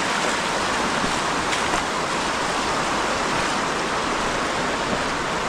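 Shallow, rocky stream rushing and babbling over stones in a steady wash of water noise.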